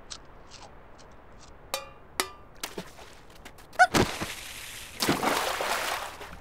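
Cartoon sound effects: scattered small clicks and a few short squeaky blips, a sharp thunk about four seconds in, then about a second of rushing, crackling noise.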